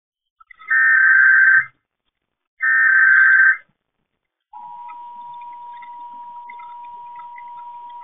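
Emergency Alert System broadcast: two one-second bursts of the SAME digital header data, then, about four and a half seconds in, a quieter steady EAS attention tone begins and holds.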